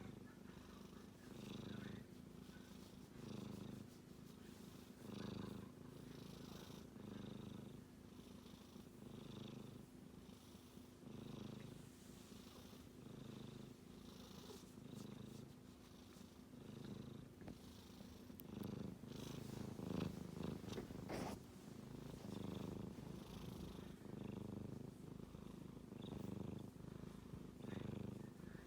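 Sleeping kitten snoring, a faint rhythmic rasp with each breath, about one every one and a half to two seconds. A brief rustling about twenty seconds in.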